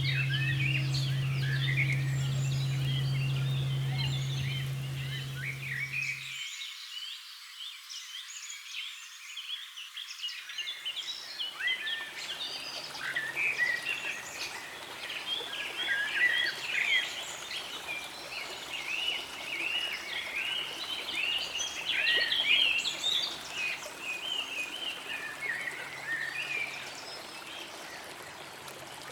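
A bell's low, steady hum that cuts off suddenly about six seconds in, under a continuous chorus of many high, short chirping frog calls.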